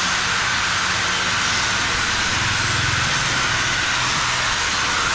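CNC laser cutter cutting steel plate, a steady hiss.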